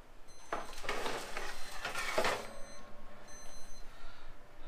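A metal baking sheet is slid out of an electric oven, rattling and scraping over the oven rack, followed by a thermometer's timer alarm beeping in short high-pitched pulses about once a second, the signal that the chicken has reached its set temperature.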